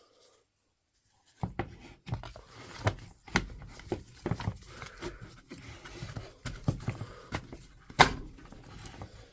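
Parts of a Dewalt DCH253 hammer drill being handled and fitted together on the bench: an irregular run of clicks, knocks and rustling that starts about a second and a half in, with one sharp knock near the end.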